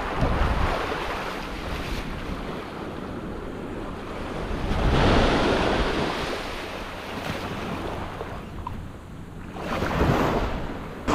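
Small surf breaking and washing up the beach, swelling louder twice, with wind rumbling on the microphone.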